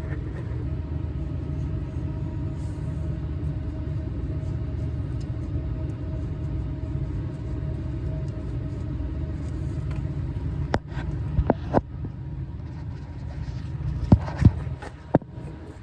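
A steady low rumble of background noise, with a few sharp clicks and taps about two-thirds of the way in and near the end as a nut-and-ferrule tubing fitting is handled and screwed onto a flow sensor.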